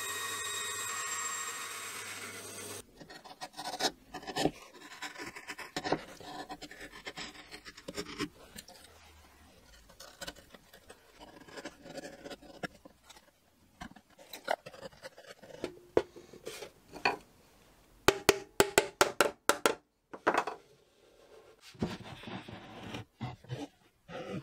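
A bandsaw runs through birch plywood for the first few seconds and stops suddenly. Then comes hand work on the plywood dovetails: a chisel paring and scraping, scattered knocks, a quick run of about ten sharp taps around two-thirds of the way through, and wooden knocks as the box parts are fitted together.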